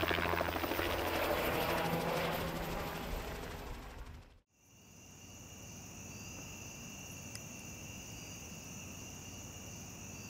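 Medical helicopter's rotor and turbine running close by, with a fast rotor chop, fading away over about four seconds. After a sudden cut, insects sing steadily in a high two-toned buzz.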